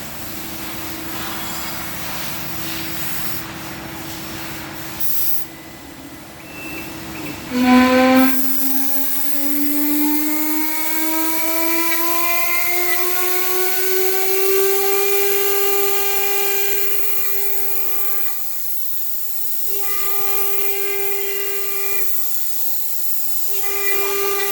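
CNC router spindle whining with a hiss. About eight seconds in there is a brief loud burst, and a fresh whine starts low and rises steadily for several seconds before holding a steady pitch, as the spindle spins up to speed.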